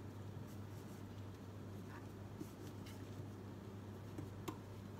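Faint handling sounds of hands pressing rolled dough pieces into a glass baking dish, with a few light taps, over a steady low hum.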